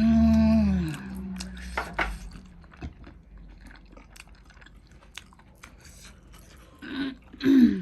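Close-up chewing and crunching of food, with scattered small crunchy clicks. It opens with a drawn-out, falling vocal hum and ends with two short vocal sounds.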